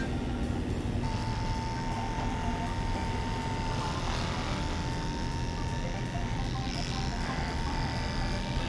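Cordless electric dog clippers running with a steady hum as they clip a Giant Schnauzer's coat; the hum grows louder about a second in.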